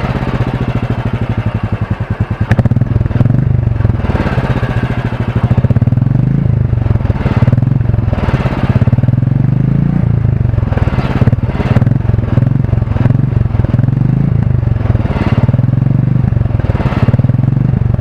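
Royal Enfield 350 single-cylinder engine running through its stock exhaust with the typical thump, a fast, even low beat, with the engine speed rising and falling every few seconds.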